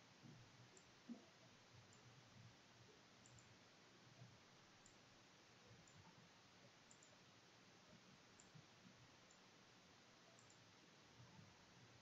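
Near silence: faint computer mouse clicks, scattered irregularly over a low hiss.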